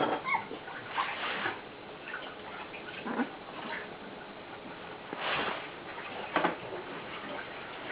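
Young puppies shuffling about, with a few short scuffling bursts and one or two faint squeaks.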